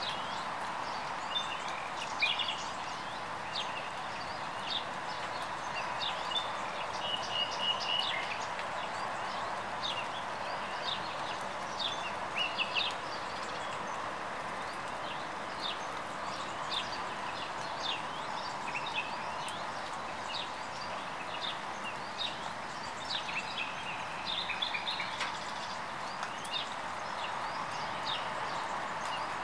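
Steady rain falling, with several birds singing throughout in many short, high chirps and trills.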